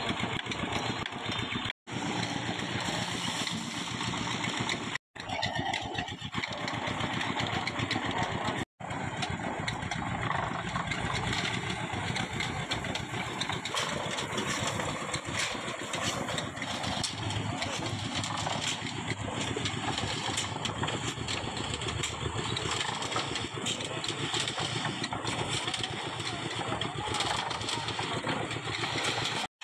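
Drum concrete mixer running steadily, its engine droning as the drum turns and churns the concrete mix of cement and gravel. The sound drops out for an instant three times.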